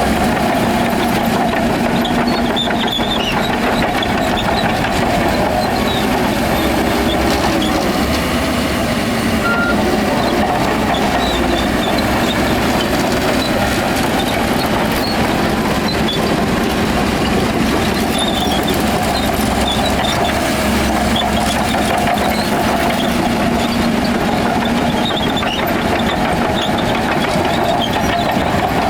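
Heavy diesel construction machinery running steadily at a working engine note, without pause.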